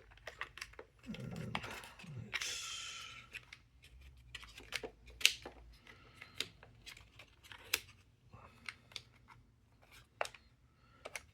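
Small puzzle-box pieces being handled and fitted by hand: a string of light clicks and taps, with a short scrape of a piece sliding about two seconds in and one sharper click about five seconds in.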